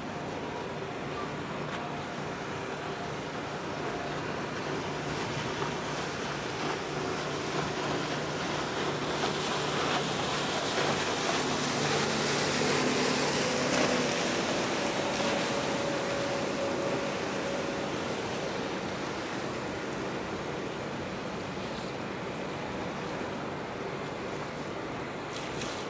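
A Wan Hai Lines container ship passing close. A steady rush of water and wind carries a faint low engine hum, swelling to a peak about halfway through and easing off again.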